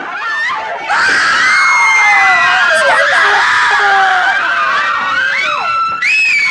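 A crowd of young people screaming, many high voices at once, getting louder about a second in.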